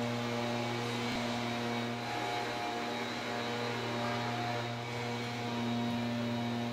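A steady low machine hum, with a fainter higher tone above it, running unchanged.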